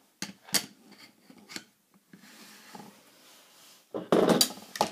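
Handling noise from a plastic 3x3 puzzle cube and its plastic cube stand: a few sharp plastic clicks and knocks as the cube is set on the stand. A louder rustling handling noise follows about four seconds in.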